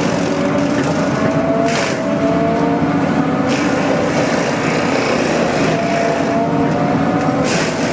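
Engine of a heavy wood-cutting machine running steadily at high revs under load, its pitch drifting slightly. Two short bursts of hiss, about two seconds in and near the end.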